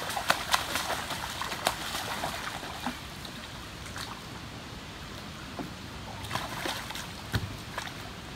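A hooked channel catfish thrashing at the surface beside a kayak: a burst of sharp splashes in the first two seconds, then quieter water with a few more splashes near the end.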